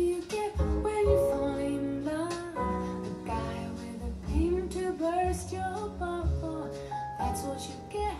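Recorded music with a woman singing over instrumental accompaniment, played back through JBL L77 speakers driven by a DIY EL84 push-pull valve amplifier.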